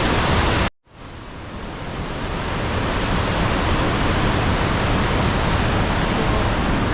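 Rhine Falls waterfall roaring as a steady, loud rush of water. It cuts out abruptly under a second in, then fades back up over the next two seconds to a steady level.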